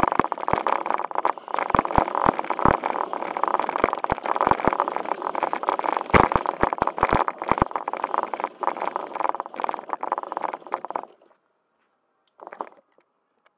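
JJRC Q76 4WD RC stunt car driving, heard from a camera mounted on it: its motor and drivetrain make a rattling whir, with many knocks and clacks as it bumps along. The sound stops suddenly about eleven seconds in, and one short noise follows near the end.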